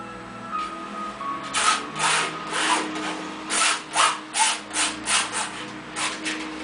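Palette knife scraping paint across a stretched canvas in a run of short strokes, about a dozen, starting about a second and a half in.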